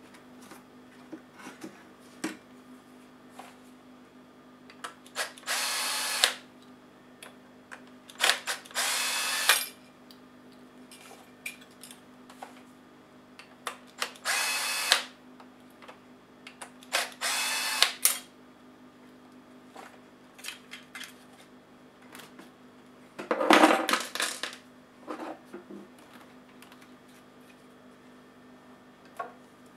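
Cordless drill-driver running in four short spurts of about a second each, backing small screws out of a laptop hard-drive bracket. Small clicks and taps of handled parts fall between them, and a louder clatter comes about two-thirds of the way in.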